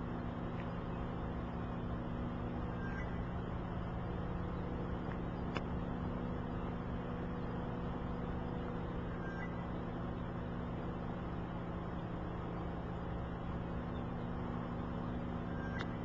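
Vehicle engine idling steadily, a low hum with a few faint clicks.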